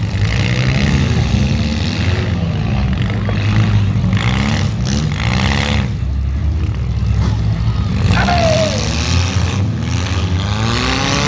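Several demolition derby cars with engines revving hard, rising and falling in pitch, with occasional bangs of cars hitting each other. There is a brief high squeal a little past the middle.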